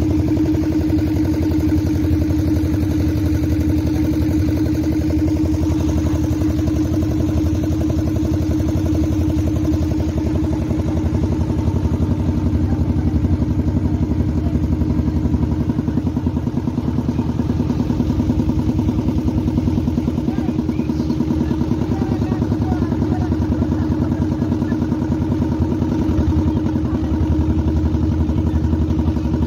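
Engine of a motorised wooden boat running steadily at a constant pitch with a fast, even pulse.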